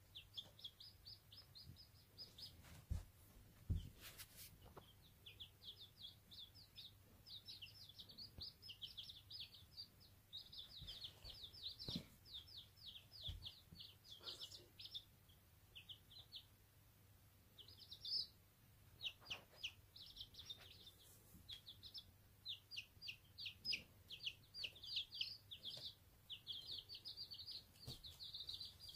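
Day-old chicks peeping: many short, high peeps in quick runs with brief pauses. There are a couple of thumps about four seconds in.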